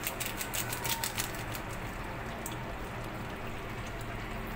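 Mutton and potato curry boiling in a pan, the bubbles popping in a quick run of sharp clicks for about the first second, then a steady bubbling.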